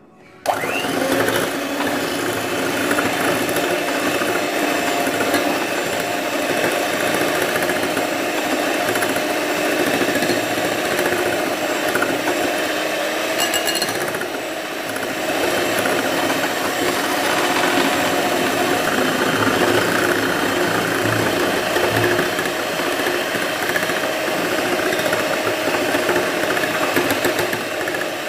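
Electric hand mixer starting with a quick rising whine, then running steadily as its twin wire beaters whip sugar and a frothy liquid in a glass bowl. The sound dips briefly about halfway through.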